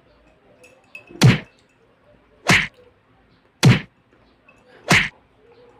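A person gulping a drink from a mug: four loud swallows about a second apart.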